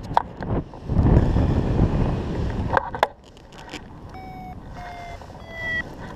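Wind rushing over the microphone of a paraglider in flight, gusty for the first three seconds and then dropping away. In the quieter second half a flight variometer beeps about twice a second, each beep slightly lower in pitch.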